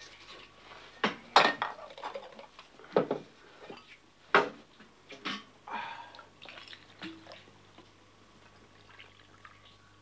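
Cups and crockery clattering and clinking on a wooden table as coffee is served: a string of sharp knocks and rattles, two of them louder, with quieter handling between, dying away in the last few seconds.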